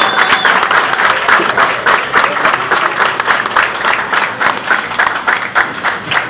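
Audience applauding: many hands clapping in a dense, fast patter.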